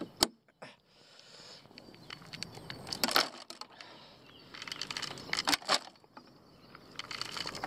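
Particle bait (sweetcorn and pellets) being tipped into the plastic hopper of a Waverunner bait boat, a rough rattling hiss with a few sharp clicks.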